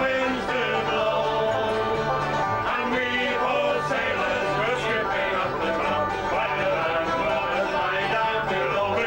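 Folk band playing live on acoustic guitar, fiddle and banjo over a steady, repeating bass line, in a lively country-folk tune.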